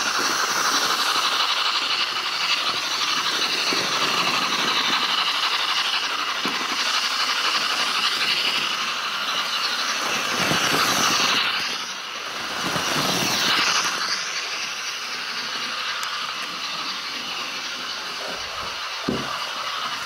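Hornby A4 OO gauge model steam locomotive running fast, its DCC sound decoder playing rapid steam-exhaust chuffing and hiss through the small onboard speaker, mixed with wheels running on the track. The level dips briefly about twelve seconds in and then swells again.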